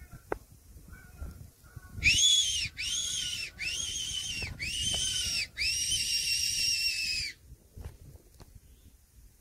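Hand-blown fox whistle sounding five squealing calls, each rising and then falling in pitch, the last held longest: a predator call imitating a rabbit in distress to lure a fox.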